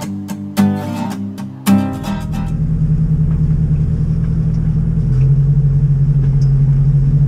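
Acoustic guitar music ends about two seconds in, followed by a sailboat's engine running steadily. Its low note steps down slightly and grows a little louder about five seconds in.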